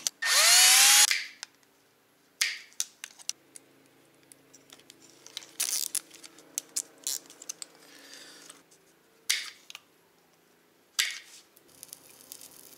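A power screwdriver spins up in one short burst of about a second near the start, its whine rising as it goes. After that come scattered clicks and light rattles from plastic headlight parts and wires being handled.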